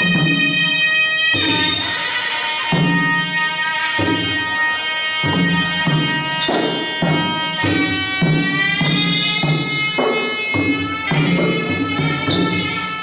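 Traditional Kun Khmer ringside music: a sralai oboe plays a nasal, wavering melody with sliding notes over steady drum beats about once a second.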